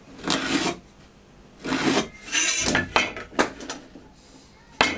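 Marking out a wooden strip by hand: a try square set and slid on the wood and a pencil drawing along it, giving a few short scraping strokes, then three sharp knocks in the second half.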